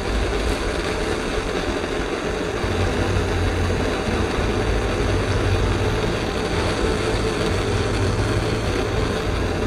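Gas blowtorch flame burning steadily against the steel action of a shotgun, heating it for soft soldering as the metal starts to turn blue.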